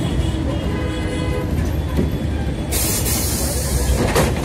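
City bus engine and road rumble from inside the moving bus in heavy traffic. About two and a half seconds in, a sudden hiss of air from the bus's air brakes lasts about a second, and a shorter hiss follows near the end. A faint high tone sounds in the first second and a half.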